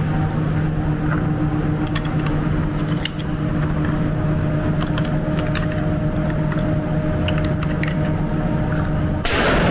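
Light clicks of .308 Winchester cartridges being pressed one by one into a rifle's detachable box magazine, over a steady mechanical hum. A louder burst of noise comes near the end.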